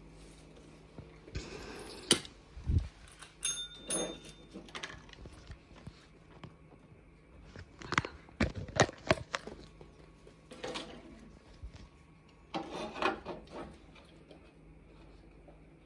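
Scattered knocks and clicks from a beagle and a Pomeranian moving on a wooden floor, with one short, high ring of a push-down dog training bell about three and a half seconds in.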